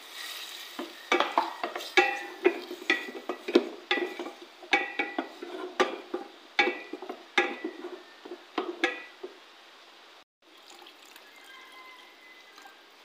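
Wooden spoon stirring chicken pieces frying in margarine in a stainless steel pot, knocking against the pot again and again over a light sizzle. The stirring stops about nine seconds in; after a short break only a faint steady hiss remains.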